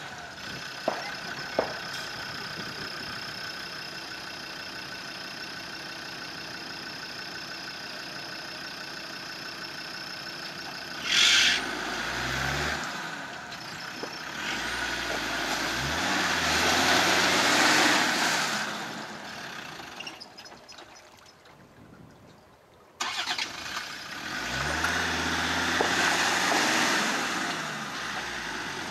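Land Rover Discovery engine running steadily at low revs, then revved up and down several times as the 4x4 works through deep mud. There is a short loud rush of noise about eleven seconds in.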